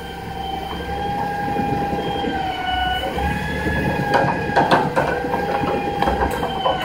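Grapple truck's diesel engine running with a steady whine from the hydraulic boom as the claw swings down. About four seconds in come several clanks and knocks as the claw bites into the pile of debris.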